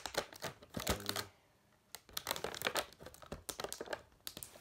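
Hard plastic Beyblade parts clicking and clattering as they are handled, in quick, irregular clicks with a short pause about two seconds in.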